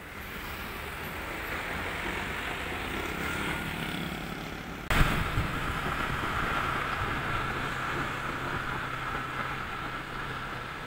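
Street traffic heard from a moving motorcycle: a steady low engine hum with road and traffic noise. A sharp click comes about five seconds in, after which the sound is a little louder.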